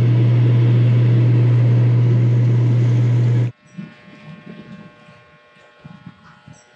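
Boat's air conditioning running just below the ceiling vent: a loud, steady hum with rushing air that cuts off suddenly about three and a half seconds in, leaving only faint low background sounds.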